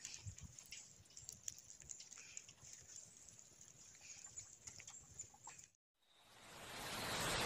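Faint outdoor ambience with scattered soft ticks and a few low thumps. About six seconds in the sound cuts out, then a steady hiss swells up near the end.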